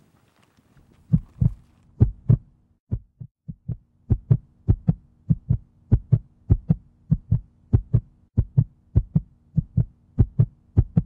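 A heartbeat thumping in lub-dub pairs, about two beats a second, with a faint steady hum underneath and no other sound.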